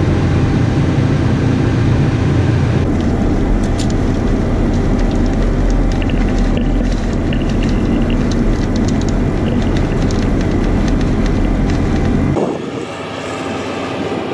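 Tile plow's diesel engine running steadily under load as it cuts a trench and feeds corrugated plastic drain tile through the boot, with rapid scattered clicks and rattles on top. Near the end the low rumble drops away and the machine sounds farther off.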